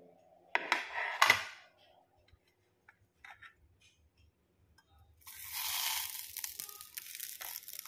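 Turmeric leaves wrapped around fish rustling and crackling as the parcels are handled and laid in a frying pan: a short crackly burst about half a second in, then a longer, steadier rustle from about five seconds in.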